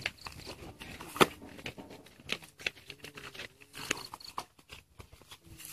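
Scattered clicks and knocks from handling a small portable water pump and its hose, with one sharp knock about a second in; the pump's engine is not running.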